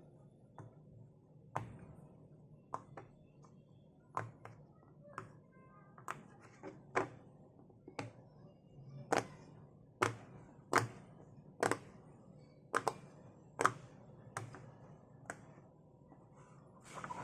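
Silicone pop-it fidget toy having its bubbles pressed one at a time: a string of sharp little pops, irregular, about one or two a second.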